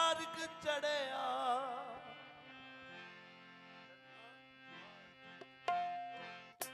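Qawwali opening on harmoniums holding sustained chords, with the lead singer's wavering, drawn-out sung line over them for the first two seconds. A few sharp beats come in right at the end.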